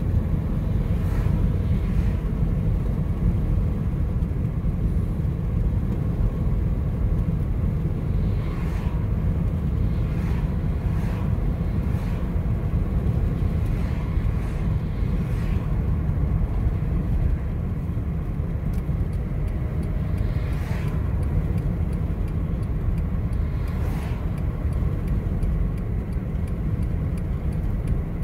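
Road noise inside a moving car's cabin: a steady low rumble of engine and tyres, with a few faint brief swishes now and then.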